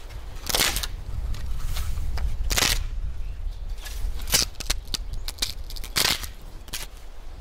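A dry, bare wooden branch being snapped and cracked by hand as side limbs are broken off: four loud cracks about every two seconds, with a few smaller cracks in between near the end.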